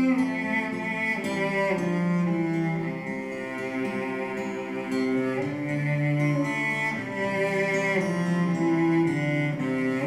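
Recorded music of slow, sustained cello-like bowed-string notes, played back through a pair of KEF LS50 bookshelf speakers and picked up in the room.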